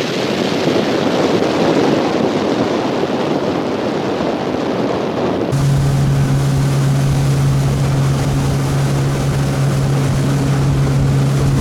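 Motorboat under way on the river: rushing wind and water noise for the first half. About five and a half seconds in it cuts abruptly to a steady boat motor drone with an even low hum.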